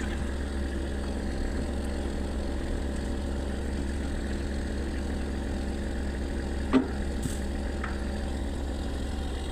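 Crane-manipulator truck's engine idling steadily. A single sharp knock about two-thirds of the way in.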